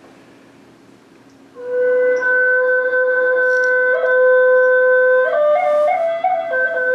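A flute starts about a second and a half in with a long held note. Near the end it steps up through a few short higher notes and settles back on the first note.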